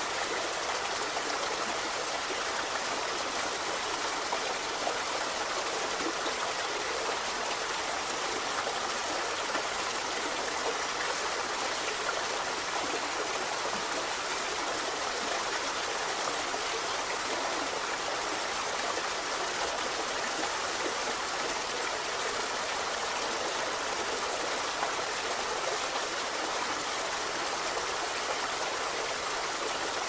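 A small waterfall pouring into a shallow rocky pool, with the stream running below it: a steady, even rush of water.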